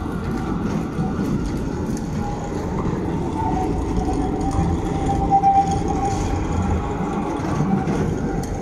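Frankfurt tram running on its rails: a steady rumble with a wavering whine that is strongest about halfway through.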